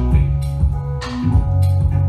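Experimental electronic music with a drum beat of about two hits a second over held bass and synth notes.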